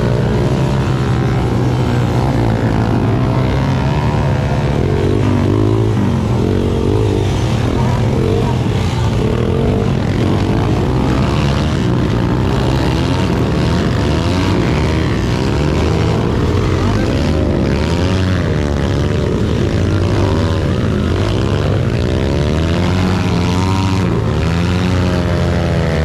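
Several off-road motorcycle engines running together, their pitch rising and falling as they are revved, over a steady low drone.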